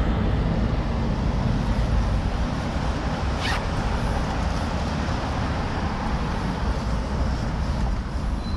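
Steady rushing noise of wind and road on the microphone during a city bicycle ride past traffic, with one sharp click about three and a half seconds in.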